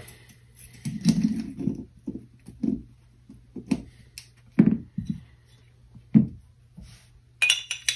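Handling noise of small steel pistol parts being fitted and moved on a rubber bench mat: a scattered series of light clicks and soft knocks, with a quick rattle of clicks near the end, as the recoil spring and guide rod are put together and the slide is picked up. A steady low hum runs underneath.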